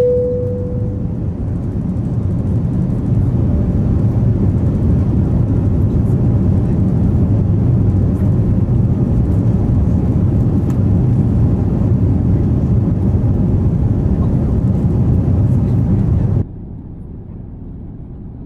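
Cabin noise of an Airbus A350-900 climbing out after takeoff: a loud, steady low rumble of its Rolls-Royce Trent XWB engines and airflow, with a single cabin chime tone fading out at the start. Near the end the rumble drops suddenly to a quieter level.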